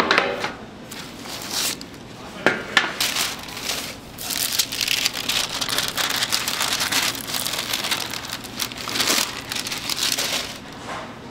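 Parchment paper rustling and crinkling as it is peeled off the sides of a baked castella slab, after a few sharp knocks near the start and about two and a half seconds in.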